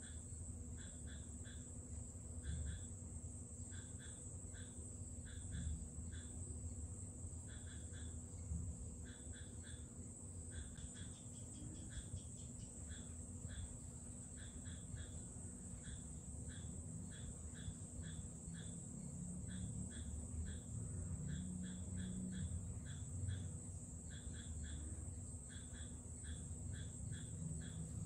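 Faint insect chirping: short chirps in quick groups of two to four, repeating steadily, over a constant high-pitched hiss.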